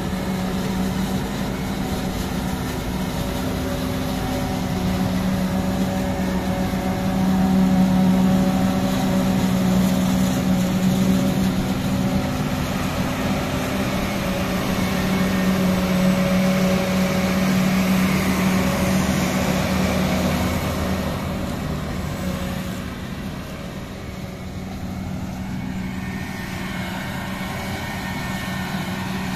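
The diesel engines of a John Deere 8300 self-propelled forage harvester chopping maize and of the tractor running alongside it with the trailer, a steady heavy drone with a strong low hum.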